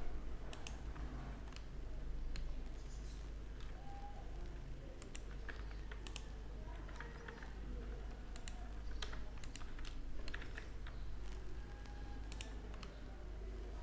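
Computer keyboard keystrokes and mouse-button clicks, scattered and irregular, over a low steady hum.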